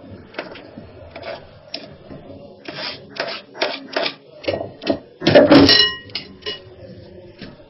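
A metal spoon knocking and scraping chopped carrots and leek off a plastic cutting board into a glass bowl, a run of uneven taps and scrapes. About five seconds in there is a louder clatter, with the spoon ringing briefly against the glass bowl.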